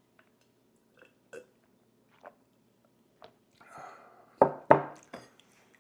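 Close-miked mouth sounds of a person eating: a few small lip and tongue clicks, a breath in, then two short, loud throat sounds in quick succession, much like burps or gulps.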